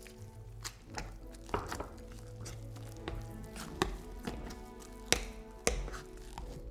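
A kitchen knife chopping on a cutting board: about nine sharp, irregular strikes, over background music.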